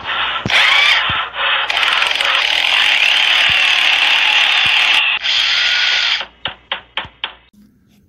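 Intro sound effect for a workshop channel's logo: a loud mechanical whirring noise for about six seconds, then a quick run of clicks, like a ratchet, that dies away.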